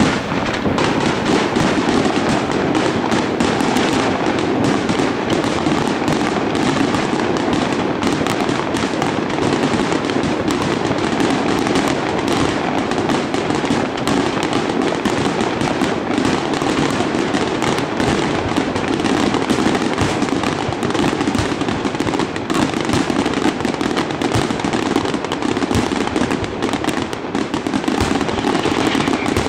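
Aerial fireworks bursting in a dense, unbroken barrage of overlapping bangs.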